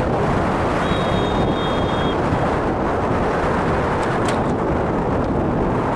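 Wind buffeting the microphone: a steady, loud rumbling roar. A faint high steady tone sounds for just over a second, about a second in.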